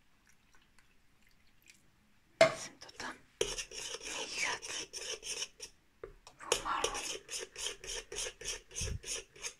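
A spoon stirring thick flour-and-water paste in a stainless steel pot, scraping round the pot in quick even strokes about three a second with a short pause partway. A sharp knock about two and a half seconds in starts the stirring; the first two seconds are faint.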